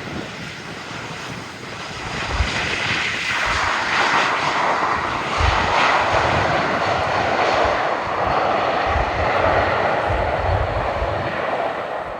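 Airliner's engines as it passes low on its approach to land: a broad rushing noise that swells over the first few seconds and then stays loud.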